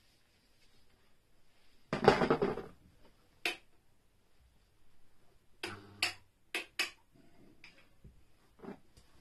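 Small hard objects being handled: a rattling clatter lasting about a second, about two seconds in, then a string of short sharp clicks and knocks spread through the rest.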